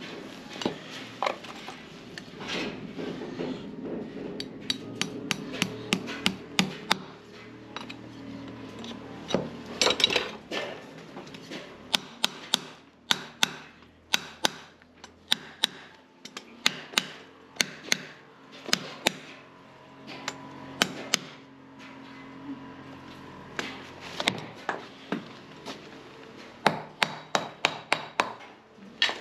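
Farrier's hammer striking horseshoe nails and a steel shoe on a horse's hoof: sharp metallic taps in quick runs of several a second, broken by short pauses.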